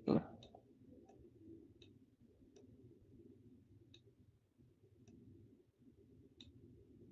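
Computer mouse clicking: about seven faint, sharp single clicks at irregular intervals of roughly a second, over a low steady room hum. A short low thump right at the start is the loudest sound.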